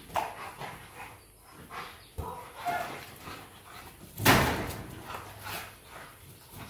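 Two Rottweilers playing, with scuffling knocks and a few brief whines, and one loud thump about four seconds in.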